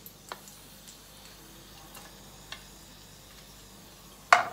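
A few faint light clicks, then near the end one sharp, loud clack as a slotted spatula is set down in an empty frying pan.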